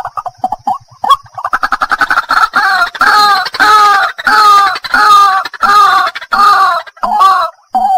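White-breasted waterhen calling: a quick run of short stuttering notes, then from about two seconds in a loud, steady series of repeated harsh calls, about two a second.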